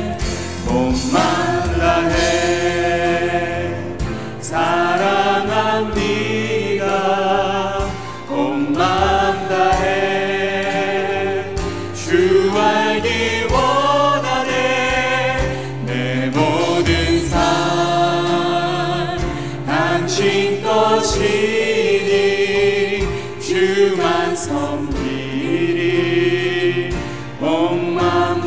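Live contemporary worship band: several voices singing a slow praise song together over keyboard, acoustic guitar, bass guitar and drums.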